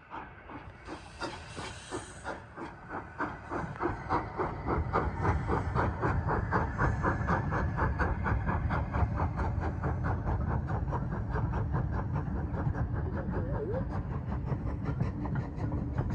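Two Bulleid light pacific steam locomotives working hard double-headed, their exhausts beating rapidly at about five beats a second, with a burst of steam hiss about a second in. The beats grow louder over the first few seconds and then hold over the rumble of the passing train.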